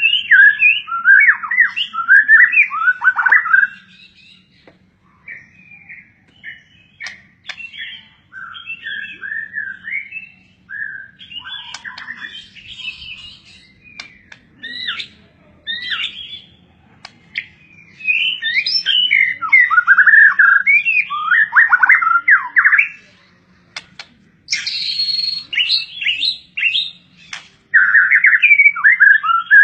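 A songbird singing in fast, varied chirping and warbling phrases, loud in spells near the start, in the middle and toward the end, with softer twittering between.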